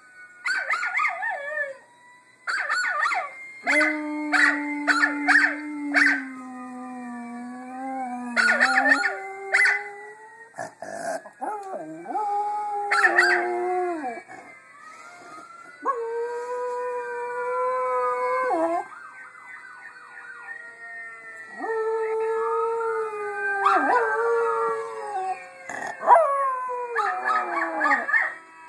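Miniature schnauzer howling along with a howling dog played through a laptop speaker: long drawn-out howls of a few seconds each, several bending in pitch, broken by bursts of short sharp yips.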